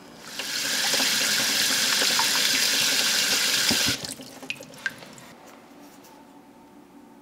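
Tap water running steadily into a pot of chestnuts, starting just after the beginning and cutting off abruptly about four seconds in. A few faint small clicks follow.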